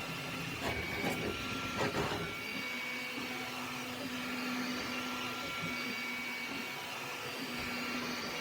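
Flashforge Adventurer 5M 3D printer running, its motors giving a steady whine of several tones that step from one pitch to another. Over it runs a fan-like hum, and a few knocks come between about one and two seconds in.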